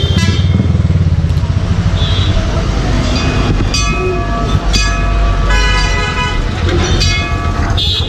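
A motorcycle engine runs with a steady low beat while vehicle horns honk several times in the second half, in short and longer toots.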